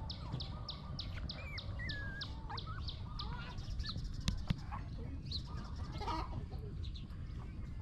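Chickens and small birds calling in a yard: a rapid run of high chirps, about four a second, stops about three seconds in, with a few wavering whistled calls and some clucking, over a low steady rumble. Two sharp clicks come just after the middle.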